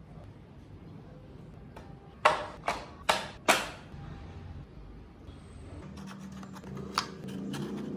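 Four sharp knocks about half a second apart, each dying away quickly, followed by a low steady hum with a few faint clicks.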